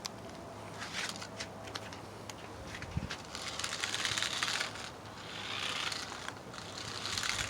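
Small remote-control car driving over the ground in stop-and-go runs, its wheels and motor making a rustling, crackling noise that swells and fades several times, loudest about halfway through.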